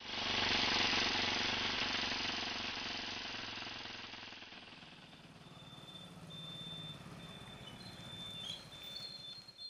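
Motorcycle engine running as it is ridden along a road, with a fast pulsing beat. It is loudest at the start, fades by about five seconds in, then grows louder again.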